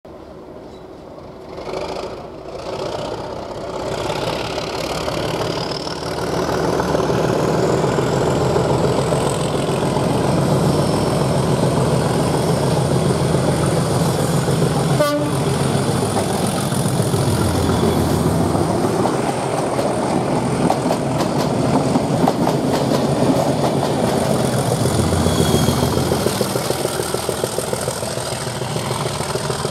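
Class 37 diesel locomotives with English Electric V12 engines growling under power as a test train passes, with a high whine that rises over the first several seconds and then holds. A brief horn toot sounds about halfway through.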